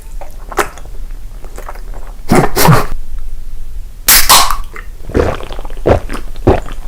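Close-miked eating sounds: loud bites and crunching, the loudest about two and a half and four seconds in, followed by quick repeated chewing strokes near the end.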